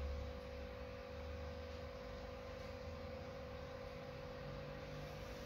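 Steady low background hum with a constant mid-pitched tone, and a brief low rumble at the start.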